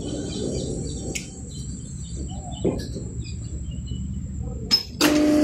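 Sawmill machinery in a lull: a low hum with a thin steady high whine, faint chirps and a few light knocks. About five seconds in, a large machine motor comes on abruptly with a loud steady hum.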